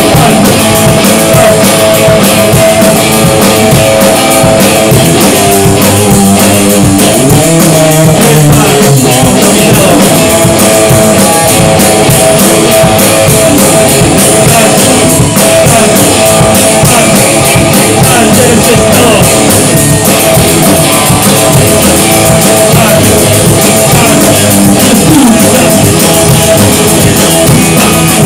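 A rock band playing a song, with electric guitars and a drum kit.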